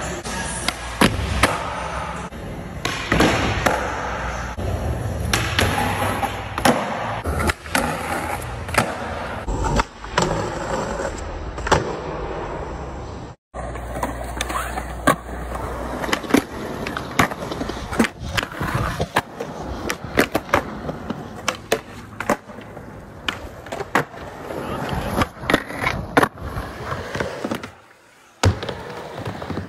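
Skateboard wheels rolling on concrete, broken by many sharp clacks of the tail popping and the board landing.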